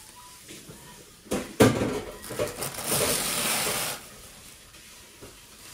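Two sharp knocks about a second and a half in, then about two seconds of crinkling and rustling as plastic wrap is handled and smoothed over an aluminium tray.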